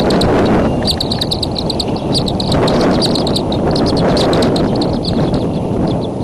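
Rapid clusters of short, high chirps from downy bald eaglets in the nest, over a loud, steady rush of wind on the microphone.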